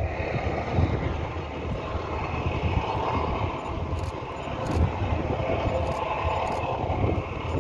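Steady low engine rumble, with wind buffeting the microphone.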